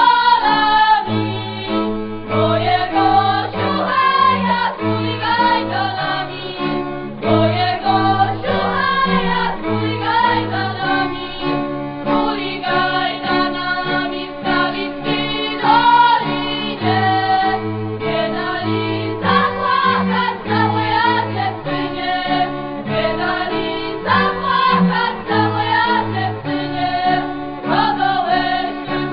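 Polish highland folk music for dancing: group singing over instrumental accompaniment, with a bass line moving in even, steady notes.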